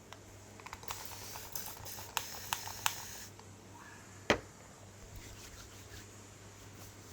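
Close-up rustling and scratching, typical of hands working through hair during a head massage, with several sharp clicks over about two seconds. About four seconds in comes one loud knock.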